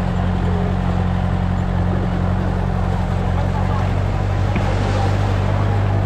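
Off-road vehicle's engine running at a steady pace while driving, a low drone that holds level throughout, with rumbling road noise over the trail.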